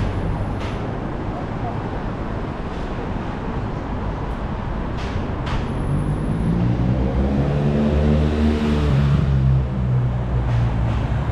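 City street traffic, with a motor vehicle's engine passing close and getting louder about two-thirds of the way in, then easing off. A few short clicks sound over it.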